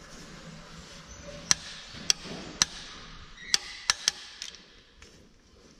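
Six sharp metallic taps and knocks from hand tools working on metal, irregularly spaced over a few seconds, over a faint steady hiss.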